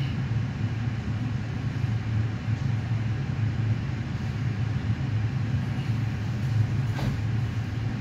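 A steady low mechanical hum, with a single sharp click about seven seconds in.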